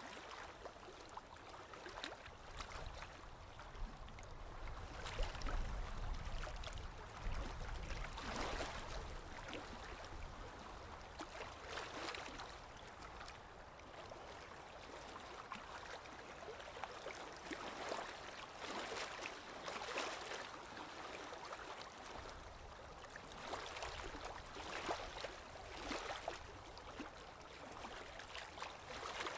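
Running water gurgling and splashing in irregular surges every second or two, with a low rumble for a few seconds early on.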